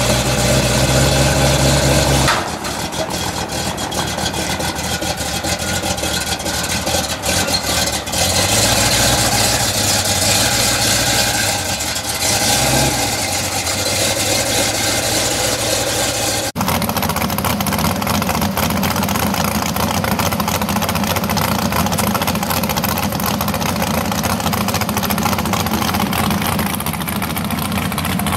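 Foxbody Mustang drag car's engine, a swapped-in 3.7 L Cyclone V6, idling and pulling away at low speed, with a steady hiss over it. The sound changes abruptly twice, about two seconds in and past the middle, as one clip gives way to another.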